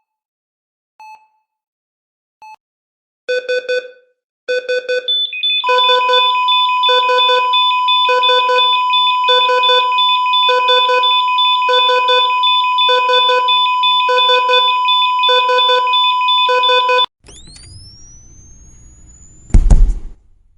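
Hospital heart monitor: two single beeps, then quick runs of alarm beeps, then a steady flatline tone under alarm pulses about once a second. The flatline signals that no heartbeat is detected. The tone cuts off, and a defibrillator charges with a rising whine, then discharges with a loud thump near the end.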